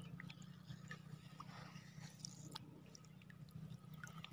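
Near silence: faint water lapping around a wader, with a few small clicks.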